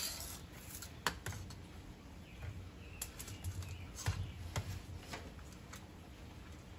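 Scattered light clicks and taps at an irregular pace, the small handling noises of working under a truck beside a plastic drain bucket, over a faint low rumble.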